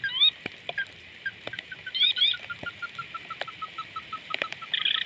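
Calls of sintar api birds: a long run of short, evenly spaced notes, about four a second, falling slightly in pitch, with rising whistled calls near the start and again about two seconds in. Sharp clicks are scattered throughout.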